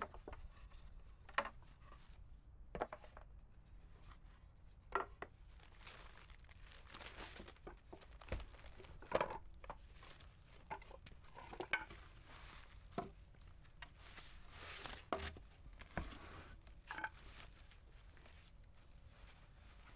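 Thin foam packing wrap rustling and crinkling as it is pulled off and bunched up around wooden fir boards, with scattered light knocks and clicks as the boards are handled.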